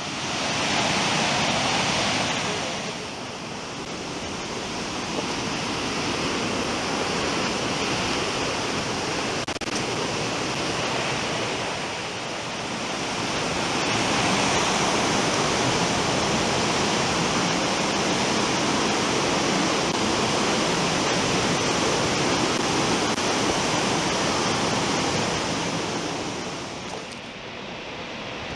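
Cumberland Falls: the river pouring over the falls and rushing through the rapids, a steady rushing noise that grows louder about halfway through and eases slightly near the end.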